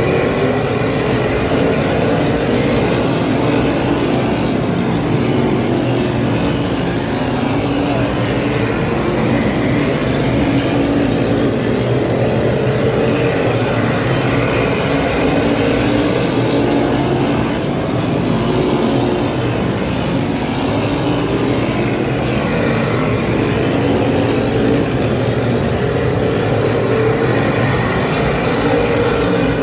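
A field of modified race cars' V8 engines running together at speed, a steady loud drone with several engine notes rising and falling as the cars come round and pass.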